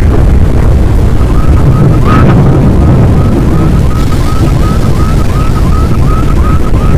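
Loud, rough low rumble of strong wind buffeting the microphone. From about a second in, a quick series of short high chirps repeats about three times a second.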